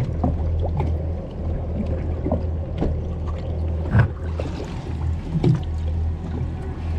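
Muffled sound through a camera held underwater: a steady low rumble with scattered clicks and bubbling pops, and a sharper knock about four seconds in.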